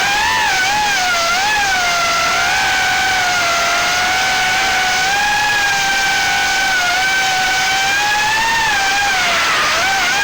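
Small FPV quadcopter's brushless motors and propellers (GEPRC 1206 4500kv motors, Gemfan 3028 props) whining in flight, the pitch wavering up and down with throttle and dipping briefly near the end before rising again.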